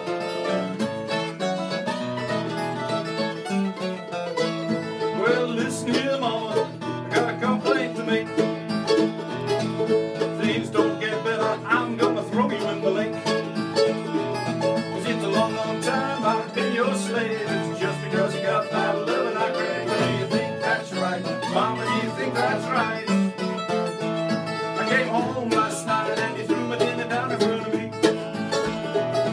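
Acoustic guitar and mandolin playing a blues tune together as an instrumental, with plucked notes throughout and no singing.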